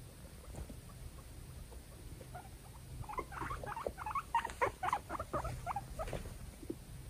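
Two guinea pigs fighting: a rapid flurry of short, high squeaks with scuffling, starting a few seconds in and stopping about six seconds in.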